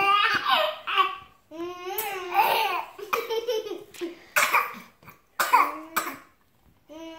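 A baby giggling in a run of short bursts of laughter with brief breaks between them, falling quiet a second before the end.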